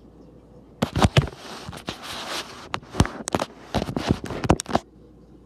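Handling noise close to the microphone of the recording phone: a dense run of loud knocks and rustling. It starts suddenly about a second in and stops sharply near the end.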